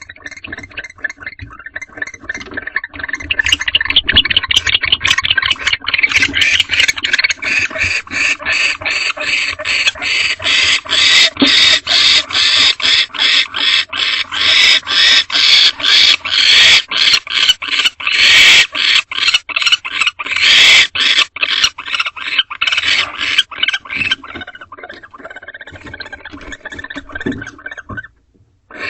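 Barn owls calling while mating: a fast, harsh chittering of about four pulses a second. It builds over the first few seconds, stays loud through the middle, then thins out and stops shortly before the end.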